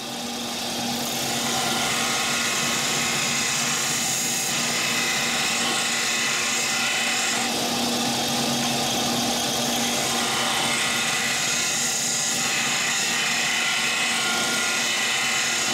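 Bench sander running steadily while the notched end of an aluminium tube is held against the abrasive, grinding the notch open and smoothing it.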